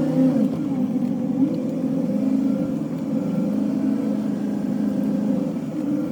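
A motor vehicle's engine running at a steady speed, a low, even droning hum.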